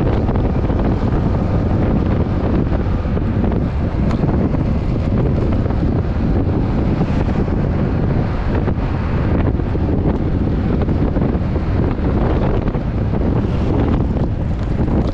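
Steady wind rushing over a helmet- or bike-mounted action camera's microphone while riding a Yamaha NMAX scooter, with the scooter's running and road noise underneath.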